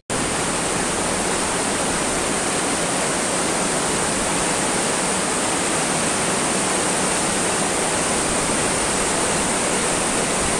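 Fast-flowing river rushing over rocks in white-water rapids: a steady, even rush of water.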